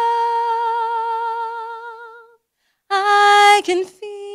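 A woman singing solo and unaccompanied into a handheld microphone, holding long sustained notes. The first note swells into a wide vibrato and fades out about two seconds in; after a short pause comes a brief loud note, then another held note with vibrato near the end.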